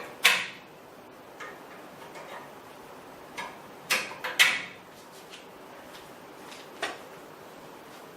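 Irregular sharp clicks and knocks of small hard objects being handled, with a loud one near the start, two close together about halfway and a few fainter ones between.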